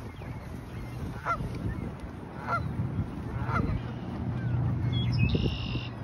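Canada geese honking: three short honks about a second apart, then a higher, longer note near the end.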